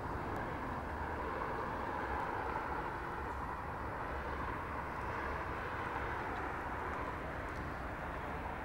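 Steady vehicle road noise: a constant rush of tyres and engine over a low rumble, holding level throughout.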